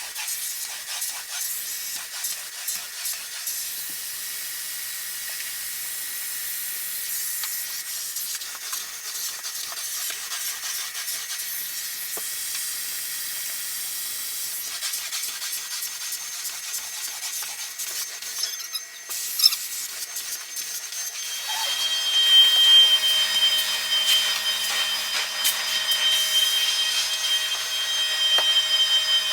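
Carpet-cleaning equipment working a carpet: a steady hiss with repeated rubbing strokes, then a machine comes on with a steady whine about two-thirds of the way through.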